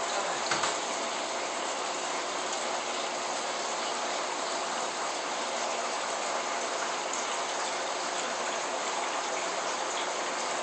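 Steady rushing hiss of aquarium water circulation, the flow of the tank's filter or return pump, with a brief bump about half a second in.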